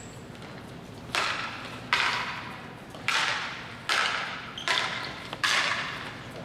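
Indoor field hockey sticks striking the ball in a run of passes: six sharp clacks about a second apart, the first about a second in, each ringing out in the sports hall's echo.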